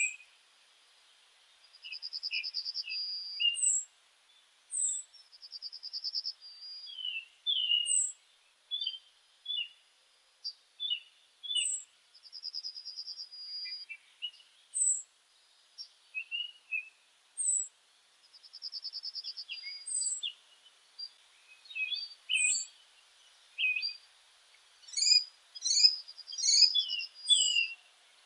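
Several songbirds calling together. High, thin down-slurred whistles come every few seconds, and a buzzy trill lasting about a second and a half comes four times, over many short chirps. The calling grows busiest near the end.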